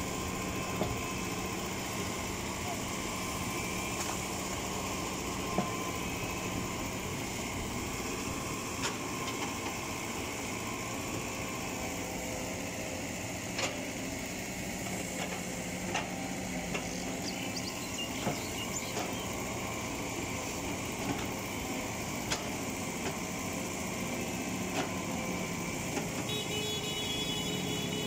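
Caterpillar hydraulic excavator's diesel engine running steadily as the bucket works through bamboo and brush, with sharp snaps and cracks every second or two. The engine pitch bends near the end.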